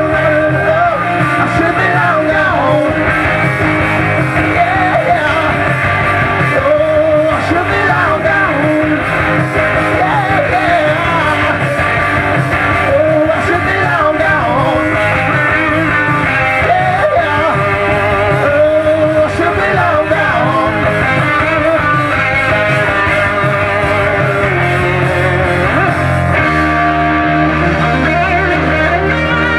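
Live rock band playing an extended instrumental passage, a lead line of bending, wavering notes over bass guitar and drums.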